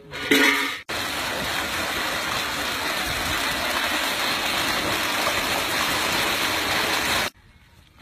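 Steady rush of running water, starting abruptly about a second in and cutting off suddenly near the end.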